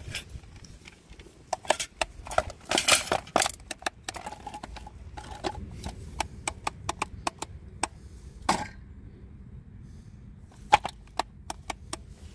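Plastic clicks, taps and knocks from a gloved hand handling the housing of a Kinzo hammer drill: a cluster of knocks about three seconds in, then a run of sharp single clicks, with the loudest knock near the end.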